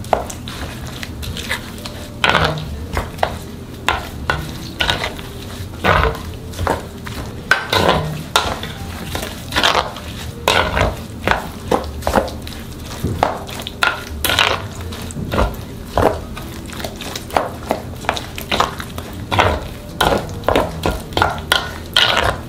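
Thick, wet kimchi seasoning paste of chili powder, blended pear and onion, and flour paste being stirred in a bowl, with repeated wet scraping strokes against the bowl, roughly one or two a second.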